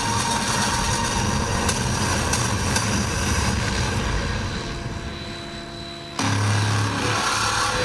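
Electric RC helicopter (Align T-Rex 700) on the ground, its motor and rotor running and then fading away; about six seconds in a louder low rumble starts abruptly.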